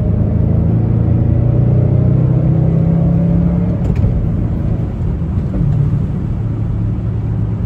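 Mustang GT's 4.6-litre three-valve V8 accelerating in third gear through Pypes Violator axle-back mufflers, heard from inside the cabin. The engine note climbs steadily for about three and a half seconds, then eases off about four seconds in.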